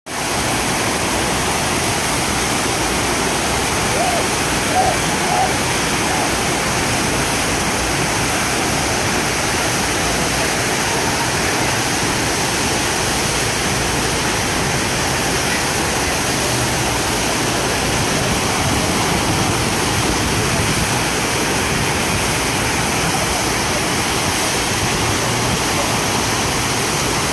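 FlowRider sheet-wave machine: a thin sheet of pumped water rushing steadily up and over the padded ramp as a continuous loud whoosh.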